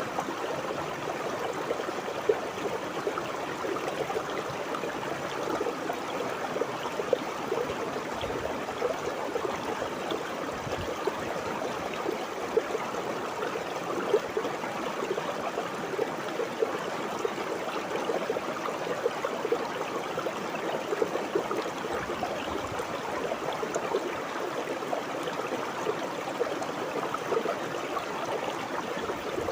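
River water flowing and babbling steadily, a continuous trickling rush with small brief splashy peaks throughout.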